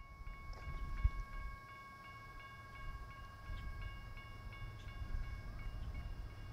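Grade crossing bells ringing steadily over the low rumble of the approaching CSX diesel locomotives, a GE AC4400CW and an EMD SD70MAC, with a sharp thump about a second in.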